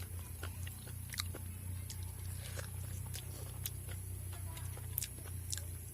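A person chewing food with scattered short mouth clicks, over a steady low hum.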